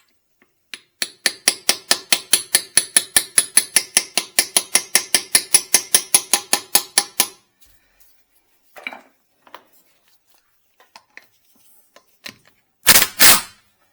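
Hammer driving a steel 19 mm socket onto a rusted lug nut that has swollen to about 20 mm: a fast, even run of ringing metal-on-metal blows, about five or six a second, for some six seconds. Then a few light clicks, and two loud knocks near the end.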